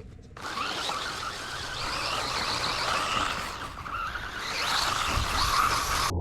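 Electric RC truck driving, its motor whine and wheels running with a wavering pitch as it speeds up and slows.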